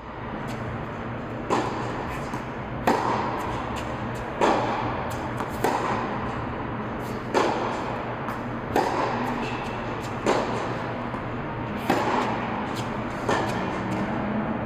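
Tennis rally: rackets striking the ball about nine times, a sharp hit roughly every one and a half seconds, each echoing in the large indoor court hall, over a steady low hum.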